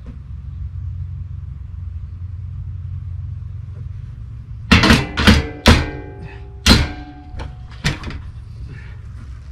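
Wind rumbling on the microphone, then about half a dozen sharp hammer blows on the metal awning arm hardware, each ringing briefly, the first few the loudest.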